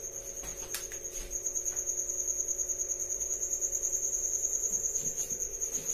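A cricket trilling steadily in a high, rapidly pulsing tone, with a steady low hum underneath.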